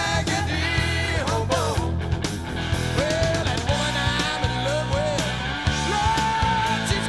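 Southern rock music: electric guitar over bass and a steady drum beat.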